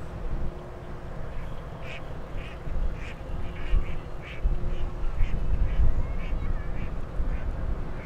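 Ducks quacking, a run of about a dozen short calls roughly two a second, over a steady low rumble.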